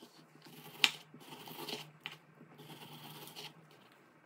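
Kitchen knife slicing through a partly frozen chicken breast on a wooden cutting board: a sharp knock of the blade on the board about a second in, then two drawn slicing strokes through the firm meat.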